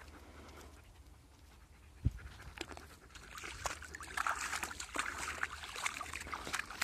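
Large dog panting as it walks through dry brush and mud at a puddle's edge: a single thump about two seconds in, then quick rustling and crackling of paws and twigs that grows louder over the last few seconds.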